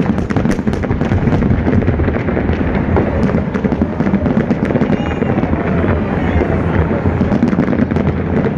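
Aerial fireworks display going off in a continuous barrage: many overlapping bangs and crackles over a steady low rumble, with no pause.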